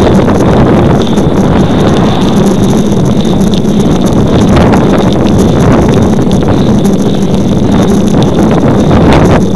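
Loud, steady wind rushing over the microphone of a camera mounted on a road bicycle moving fast along the road.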